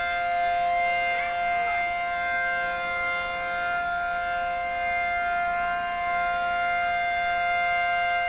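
P-15 outdoor warning siren sounding a steady chord of several tones, held at one pitch and a constant level with no wind-up or wind-down.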